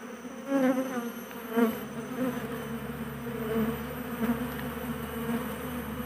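Asian honey bees (Apis cerana) buzzing in a steady hum around the entrance of a box hive, with two louder passes in the first two seconds as single bees fly close by. The workers are scrambling into the box to reach their queen, who has been placed inside.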